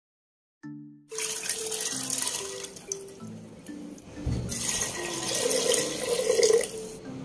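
Tap water pouring and splashing into a pressure cooker of soaked black chickpeas, starting about a second in, over soft background music with a simple melody.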